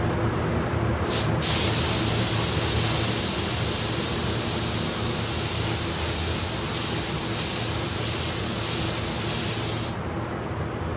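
Paint spray gun laying down a coat of clear coat: a short hiss about a second in, then a steady hiss of spraying for about eight seconds that stops about ten seconds in.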